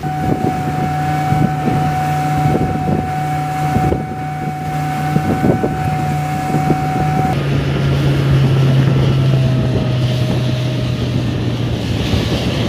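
A fishing boat's engine running under way, with a steady hum and a higher whine, and irregular thuds as the hull meets the waves, over wind on the microphone. About halfway through, the engine note drops lower as the boat comes to the next fishing spot.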